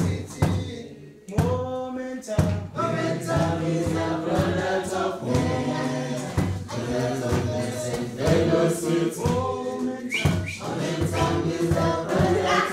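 A group of voices singing together like a choir, holding long notes with short breaks between phrases.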